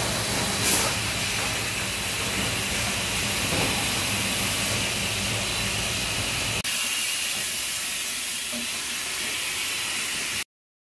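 Steady hiss and low machine hum of a running plastic-bottle production line with its bottle conveyors. The low hum drops away about two-thirds of the way through, and the sound stops abruptly just before the end.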